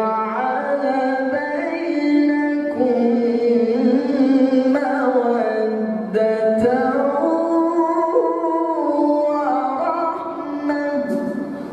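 A man's voice reciting the Quran melodically, with long held notes that slide and ornament between pitches. The phrase tapers off near the end.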